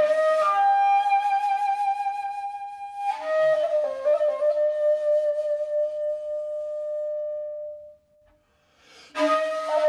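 Background flute music playing long held notes. It drops out for about a second near the end and then starts again.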